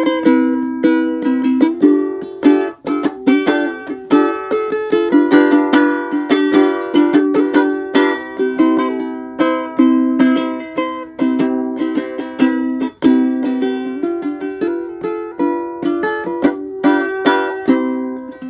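Ukulele strummed in a steady rhythm, cycling through a simple chord progression from C through G7, with strings picked like a bass line between the strums.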